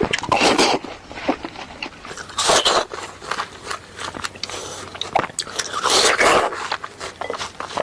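Close-up crunching bites into crisp fruit: three loud crunches, about a second in, around two and a half seconds and around six seconds, with small wet chewing clicks between them.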